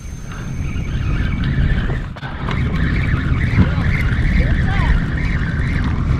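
Wind buffeting the microphone of a camera on a sea kayak, a steady low rumble that comes in just after the start, with a rougher hiss of sea and wind above it.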